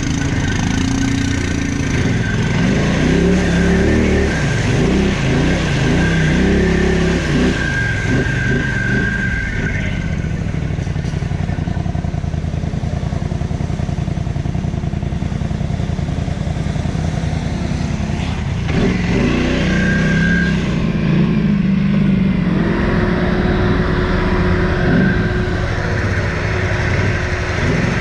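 Quad bike (ATV) engine being ridden off-road, its revs rising and falling repeatedly through the first ten seconds or so, running more evenly in the middle, then revving up and down again about twenty seconds in.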